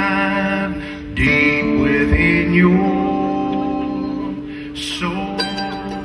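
A live acoustic country band playing, with mandolin and acoustic guitars. A man sings a held line over the guitars, and near the end it gives way to quick picked notes from the mandolin.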